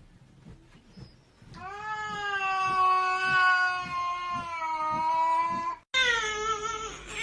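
Cat yowling: one long drawn-out call lasting about four seconds, then, after an abrupt cut, a second, higher-pitched call.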